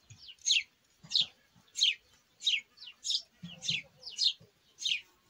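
A small songbird calling over and over: a short chirp that falls in pitch, about once every 0.6 seconds, around eight times.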